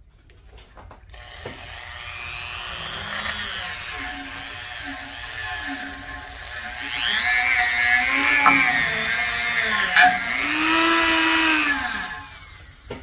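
A Dremel MultiPro rotary tool with a small wire brush whines as it scrubs rust off the steel shaft of a blower motor. Its pitch dips and recovers again and again as the brush is pressed on and eased off. It gets louder past the middle, with one sharp click, and winds down near the end.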